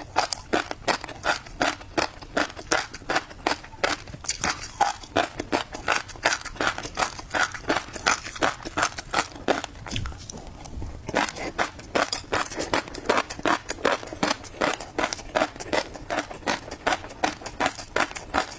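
Close-miked chewing of tobiko (flying fish roe), the small eggs crunching and popping in a quick, even rhythm of about four to five bites a second, with a short break about ten seconds in.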